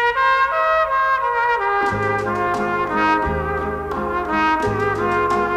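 Background music: a melody of held notes, joined about two seconds in by a low, rhythmic bass part.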